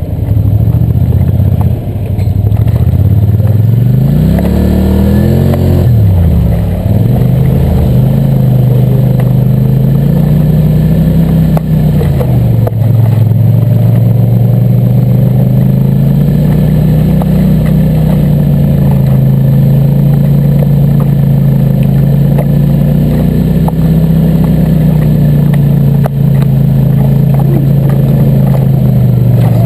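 A four-wheeler ATV engine running close up while climbing a rough trail. A few seconds in, the revs climb and drop quickly, then it runs at fairly steady revs with slow swells as the throttle is worked.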